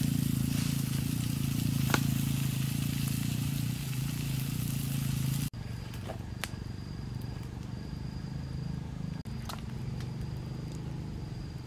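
Outdoor fire ambience with a steady low hum, a few sharp clicks and faint crackling, as a banana-leaf packet is handled on a stone slab and set onto glowing charcoal.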